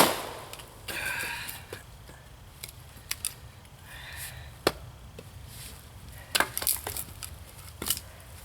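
Firewood being split by hand: one loud, sharp chopping strike into a log at the start. Scattered knocks and cracks of wood follow, with pieces clattering about a second in.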